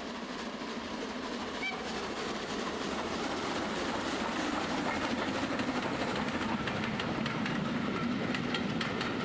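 A model railway train, a steam locomotive hauling coaches, running along the track. It is a steady rumble of wheels and motor that grows louder as the train comes past, with light clicking from the wheels over the rail joints in the later seconds.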